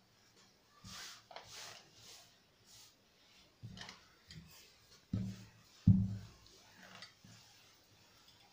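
Cloth being handled on a table: soft rustling as a length of striped fabric is smoothed and folded by hand, with a few dull thumps against the table top, the loudest two about five and six seconds in.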